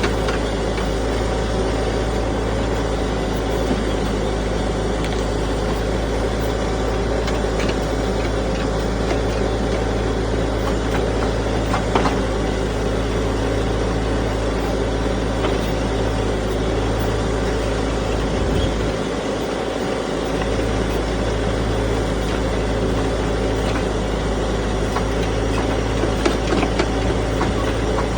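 Backhoe's diesel engine running steadily, with a few short knocks about twelve seconds in and again near the end.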